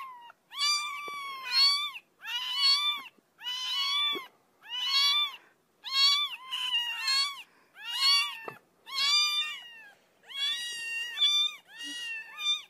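Two young kittens mewing over and over in high-pitched calls, one or two a second with short pauses between.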